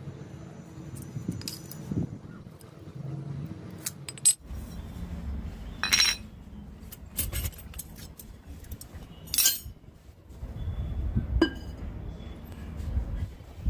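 Irregular clinks and knocks of metal and glass pieces being handled on a work surface, a few of them ringing briefly.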